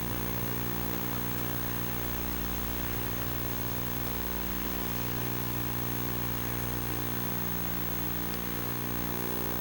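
Steady electrical buzz from a Sony Hi8 Handycam's own recording, a constant low drone with several evenly spaced tones over tape-like hiss. The buzz is a recording fault and is louder than wanted.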